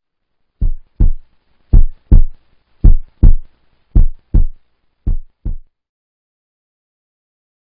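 Heartbeat: five loud double thumps in a lub-dub rhythm, a little under one beat a second, stopping about two seconds before the end.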